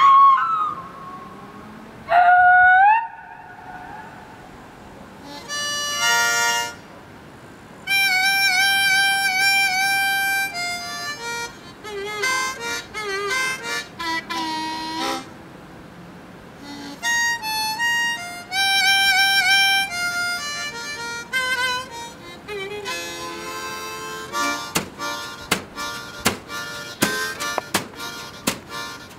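Solo harmonica played freely: two rising swoops at the start, then held chords and short melodic phrases with pauses between them. Near the end comes a run of sharp percussive taps.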